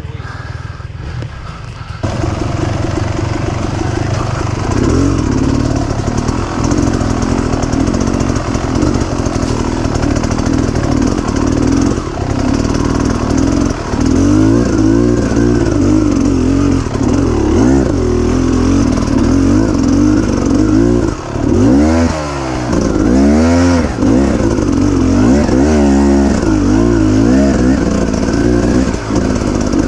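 Off-road dirt bike engine, heard close up from the rider's own bike, running under way on a trail. It gets louder about two seconds in, and from about halfway the revs rise and fall again and again as the throttle is opened and closed.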